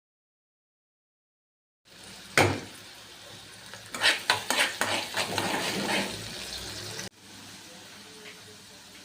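Silence for about two seconds, then a metal spoon knocking once against a pan and clinking and scraping as greens are stirred while frying, over a steady sizzle that drops quieter after a sudden cut near the end.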